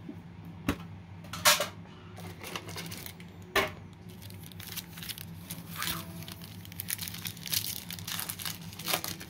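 Foil Yu-Gi-Oh booster packs crinkling and crackling as they are handled, with a few sharp clicks in the first few seconds, the loudest about a second and a half in, and dense crackling in the second half.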